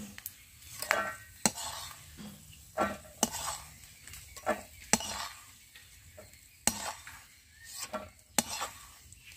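Metal spatula scraping and knocking against an iron kadai as fried peanuts are scooped out of hot mustard oil onto a plate. There are about ten sharp, irregular strokes over a faint sizzle of oil.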